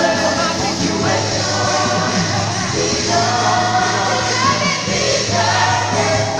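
Gospel choir singing in harmony, holding chords that change every second or so, over a steady low bass tone.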